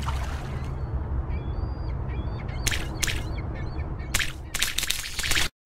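Moody outro sound bed: a steady low rumble with faint bird chirps over it and a few short, harsh calls, two about two and a half seconds in and a cluster near the end, before it cuts off suddenly.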